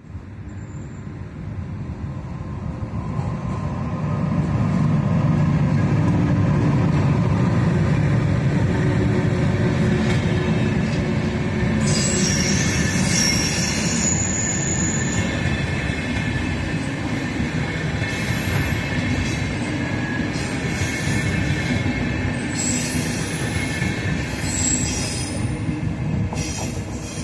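VR Sr1 electric locomotives hauling a train of double-deck intercity coaches past at low speed. The locomotives' rumble builds to its loudest about four to eight seconds in, then the coaches roll by with steady wheel noise and high wheel squeal from about twelve seconds on.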